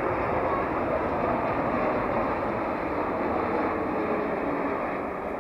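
Boeing 747's four jet engines sounding as a steady rumble as the airliner passes low on approach to land, easing off slightly near the end.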